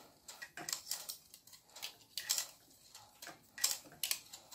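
Stihl FS91 brush cutter's plastic string-trimmer head being turned off its reverse-threaded shaft by hand: a string of faint, irregular clicks and rubs of hands on plastic, a few each second.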